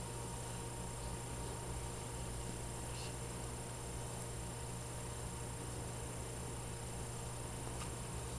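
Steady low electrical hum over a faint hiss, with a couple of faint soft ticks.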